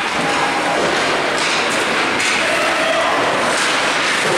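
Ice rink din from a hockey practice: a steady hiss of skates scraping the ice, with a few sharp clacks of sticks and pucks and faint children's voices.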